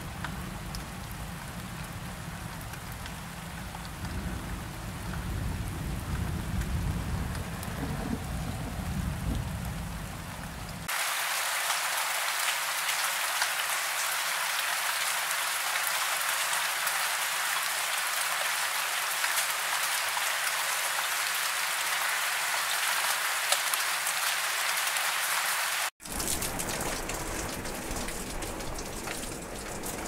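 Steady rain with a low rumble underneath, cut off suddenly about eleven seconds in by the steady rush of a waterfall pouring over rock, brighter and without the low end. A hard cut near the end brings back steady rain.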